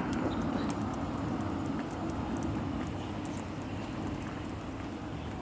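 Steady rumble of a passing motor vehicle, fading gradually as it moves away, with faint light clicks over it.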